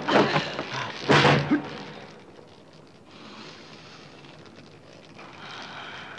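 Fight-scene sound effects from a dubbed kung fu film soundtrack: two loud sudden hits, one right at the start and a stronger one about a second in, then a faint steady hiss.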